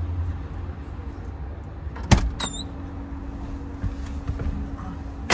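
Car door of a Tofaş Şahin: a sharp click and a short high squeak as the driver's door is opened about two seconds in, then the door slammed shut near the end as the driver gets in.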